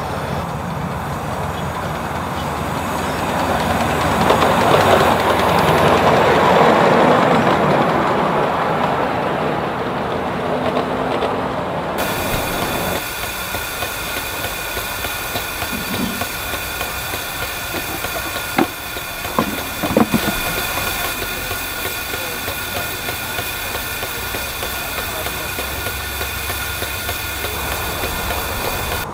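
A 7¼-inch gauge miniature steam train running on the track, its rumble swelling for a few seconds and then falling away. About twelve seconds in the sound changes to a steady hiss with fixed high tones from a standing miniature steam locomotive, with a few sharp metallic clicks.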